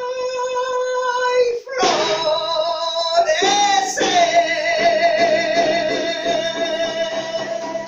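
A woman singing alone in long held, high notes with a wavering vibrato and short breaks for breath. Under the voice in the second half come steady, evenly spaced beats on a handheld Andean caja frame drum.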